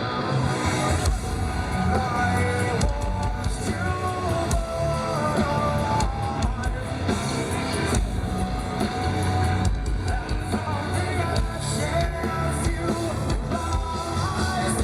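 Rock band playing live, with electric guitar and a singer over a steady heavy low end.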